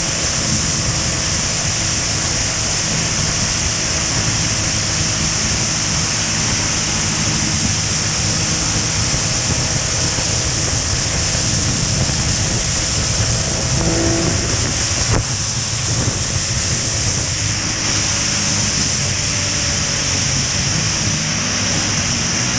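Motorcycles cruising at highway speed: steady wind and road rush over the bike-mounted camera, with a low, even engine drone underneath.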